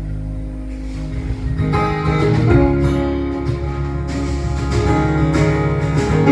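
Live instrumental break in a song: a held chord rings for about a second and a half, then rhythmic acoustic guitar strumming comes in and continues, with low notes sounding underneath.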